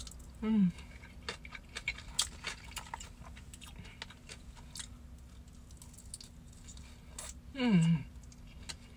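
Close-up eating of fried chicken with chopsticks: chewing with many small scattered clicks and crackles, the plastic takeout tray rustling. Two short falling 'mm' sounds of the eater's voice, about half a second in and again near the end.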